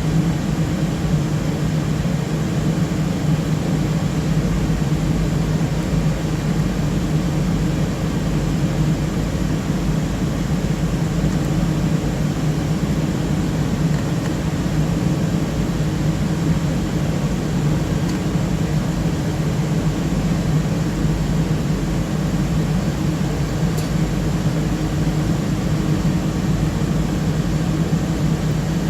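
Blade server enclosure cooling fans running with a steady, loud whir and a low hum, unchanging throughout.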